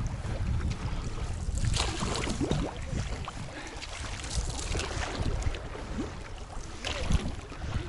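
Wind buffeting the microphone as a low rumble, with irregular rustling footsteps through grass and brush.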